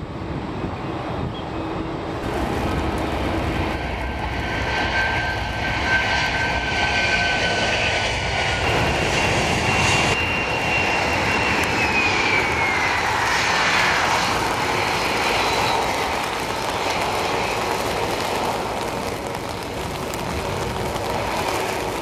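Jet airliner engine noise: a twin-engine widebody climbing away, then a Boeing 737-300's CFM56 turbofans on a wet runway. There is a steady rush with a thin whine that holds and then falls in pitch about twelve seconds in.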